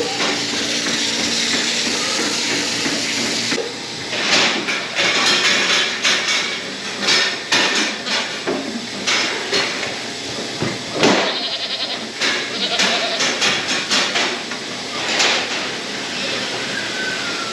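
Goats bleating, many short calls overlapping from about four seconds in. A steady hiss fills the first few seconds.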